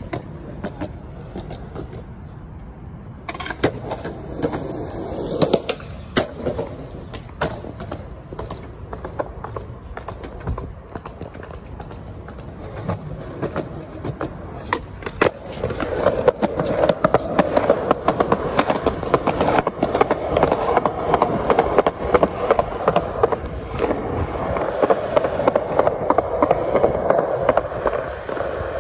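Skateboard wheels rolling over concrete, with many sharp clacks of the board hitting the pavement. The rolling grows louder about halfway through.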